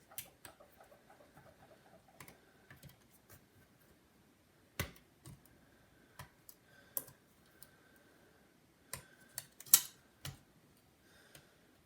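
Scattered small clicks and taps, with a few louder sharp clicks, as ribbon and cable connectors are pried off a MacBook logic board.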